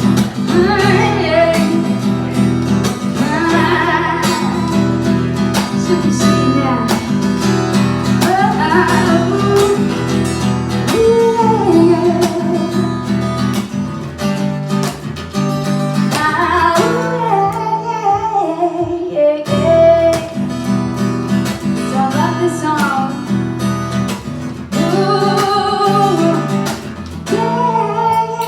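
Acoustic guitar being strummed live with a woman singing long, sliding wordless lines over it, without lyrics.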